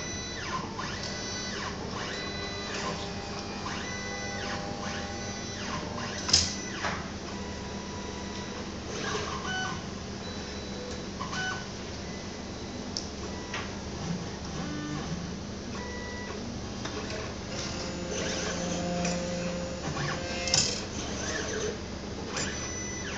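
Beckman Coulter automated flow-cytometry sample-prep workstation adding samples to its tubes: motors whirring in short runs at changing pitches over a steady hum, with two sharp clacks, one about six seconds in and one near the end.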